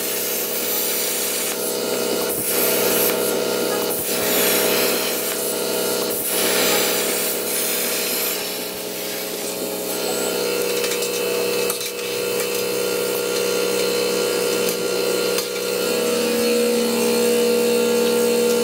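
CNC plasma cutter torch cutting steel plate: a steady hiss with several humming tones underneath.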